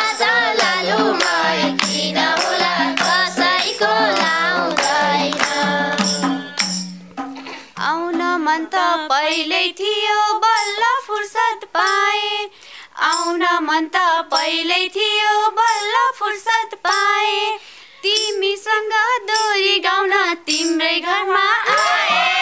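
Nepali dohori folk singing with hand clapping. For about the first seven seconds the group sings over a steady low drone. After that, two women sing a verse together in short phrases with vibrato, and the clapping continues.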